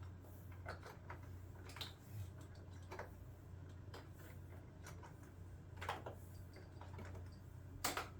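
Scattered light clicks and knocks of plastic parts on a Shark Navigator Lift-Away Pro upright vacuum as it is handled and its power cord is dealt with at the cord hooks. A steady low hum runs underneath.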